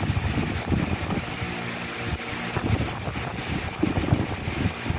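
Handling noise from a boxed electric winch being lifted and turned among its cardboard box and plastic packaging: irregular bumps and knocks over a constant rustle.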